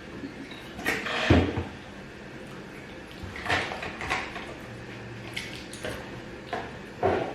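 Eating sounds: a string of short, separate mouth and utensil noises from a plate of gari, beans and fried plantain being eaten, roughly one every half second to second.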